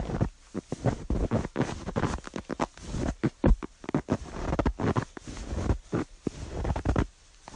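Footsteps crunching on snow: a run of irregular crisp crunches, each step breaking up into several small crackles, with a short pause near the end.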